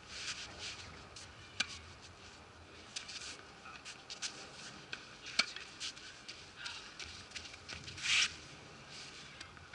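Tennis balls being gathered up with a racket and hand on a hard court: scattered light taps and scuffs with footsteps, and a short louder rustle about eight seconds in.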